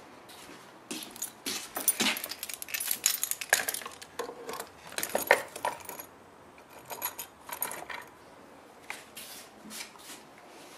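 Bunch of keys jangling and clinking in irregular bursts, busiest in the first half and sparser after about six seconds.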